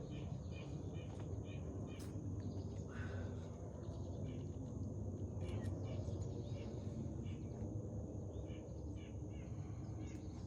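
Outdoor background: a steady low rumble of ambient noise with a small bird chirping repeatedly in short groups of notes. A single sharp click about two seconds in.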